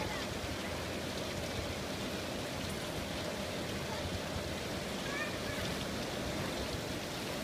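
Steady rush of running and splashing water from water-park slides and pools.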